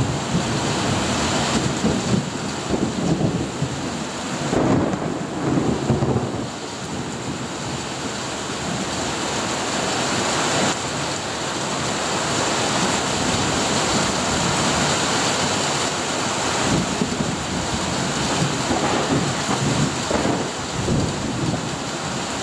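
Steady rain falling, with thunder rumbling through it in the first few seconds and again near the end.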